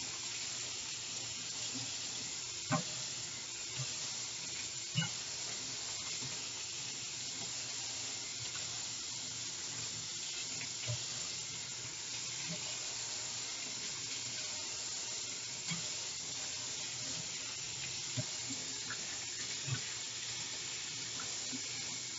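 Tap water running steadily into a sink as a bundle of hair is rinsed under it, with a few small knocks, the most distinct about three and five seconds in.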